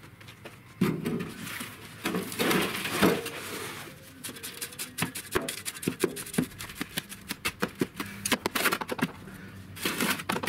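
Soil tipped out of a plastic planter into a wheelbarrow, sliding and thudding in a few rustling bursts. From about four seconds in, a shovel stirs through the soil in the wheelbarrow with many quick crunching scrapes.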